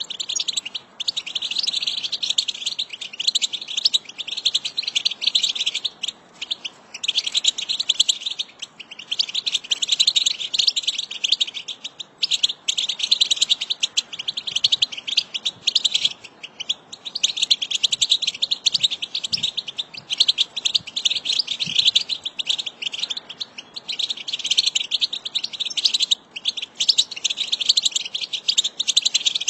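A flock of European goldfinches twittering: dense, rapid, overlapping chattering calls that run on with only brief breaks every few seconds.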